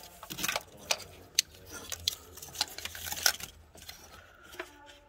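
Irregular light clicks and knocks of hands handling parts and plastic wiring connectors in an engine bay.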